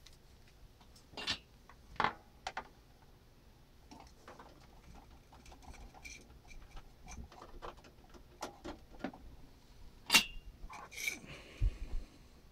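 Handling sounds of a charging cable and its plastic charger clip being brought to a Microsoft Band 2: scattered light clicks, taps and rustles, with sharper clicks about two seconds in and again about ten seconds in, and a dull bump just before the end.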